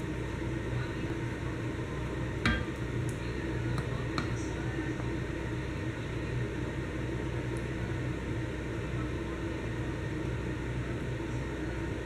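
Kitchen sound of a pot of coconut-milk fish curry cooking on the stove over medium heat, under a steady low hum. One light clink of a utensil about two and a half seconds in, with a few faint ticks after.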